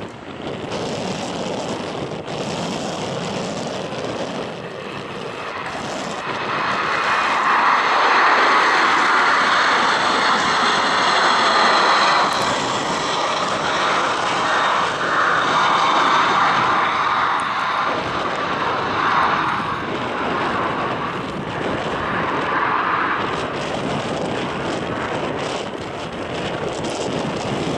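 Twin jet engines of an Airbus A330 airliner at takeoff power as it lifts off and climbs away: a loud rushing jet noise that grows about six seconds in, wavers, and eases a little toward the end.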